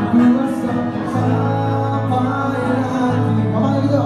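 Indie folk band playing live: guitar and steady low bass notes under male vocals sung into a microphone.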